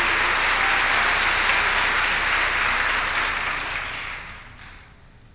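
Audience applause, fading away about four seconds in.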